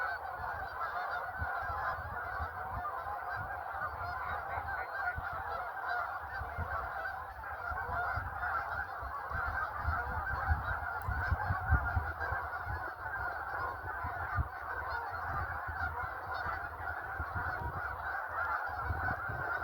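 A large flock of Canada geese honking without pause, many calls overlapping into a dense chorus, with a low rumble underneath.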